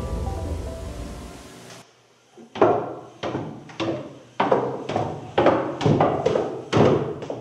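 Music fades out over the first couple of seconds. After a brief hush, footsteps on a hard floor begin, about two sharp steps a second.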